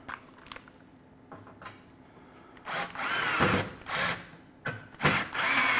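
Cordless drill/driver run in three short bursts, the last the longest, driving screws through a plywood cabinet side into its center shelf; the motor's whine dips and recovers as each screw bites. Light handling clicks come before the first burst.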